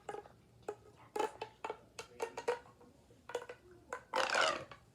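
Small plastic fidget toys, a miniature pop tube among them, clicking and clattering as they are handled. Near the end comes a louder, raspy sound of about half a second with a sliding pitch.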